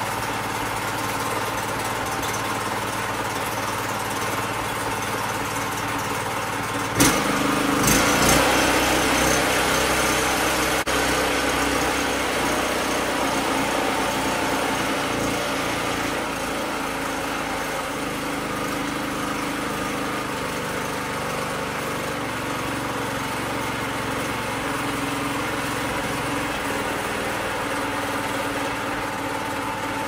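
Predator 212cc single-cylinder four-stroke engine running through a generator-style muffler. It runs steadily, then about seven seconds in a sharp click comes and the engine speeds up and runs louder for several seconds before easing back to a lower speed.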